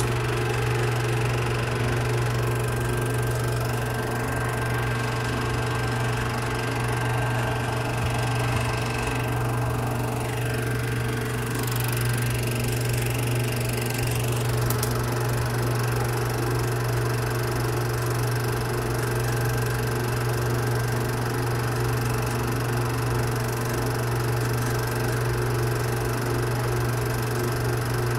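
Film projector running: a steady motor hum and whir that holds at an even level, with no change as the shots change.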